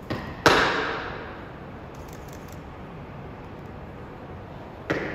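Drill shoes striking a hard tiled floor: a light step followed by a sharp, loud stamp about half a second in, echoing as it dies away over about a second. Another light step comes near the end. It is the foot-stamp of a marching scout coming to a halt.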